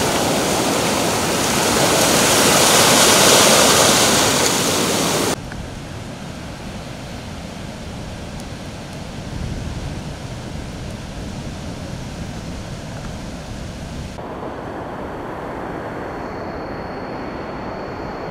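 Ocean surf breaking and rushing on a sandy beach, loud at first. About five seconds in it cuts abruptly to a quieter, steady rush, and in the last few seconds a faint, steady high tone sits over it.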